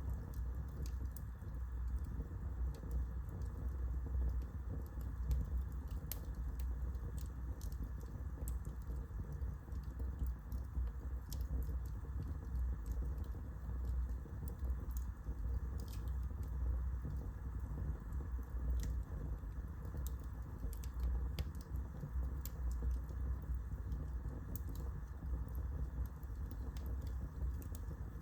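Wood fire burning in a fireplace: a steady low rumble under irregular sharp crackles and pops from the burning wood.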